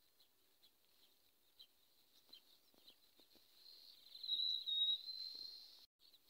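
Faint high chirps, then a louder high-pitched, slightly wavering trill of a small animal, a bird or a field insect, lasting about two seconds from around three and a half seconds in. The trill cuts off abruptly near the end.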